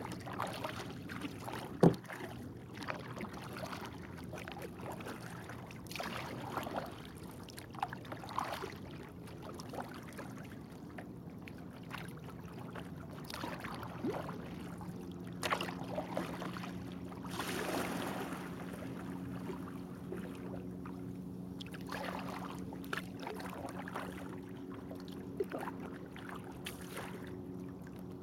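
Kayak paddle strokes at an unhurried pace: the blades dipping and splashing in calm water, with drips and small lapping sounds between strokes. There is a sharp knock about two seconds in, and a low steady hum comes in about halfway through.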